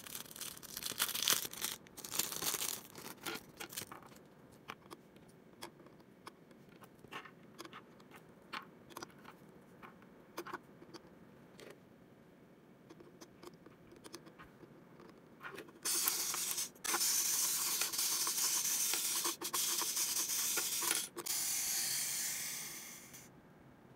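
Small plastic toy parts handled: rustling and crinkling for the first few seconds, then sparse light clicks as miniature plastic sushi pieces are set onto the toy's plates. About two-thirds of the way through a loud steady hiss starts, breaks off briefly a few times, and stops shortly before the end.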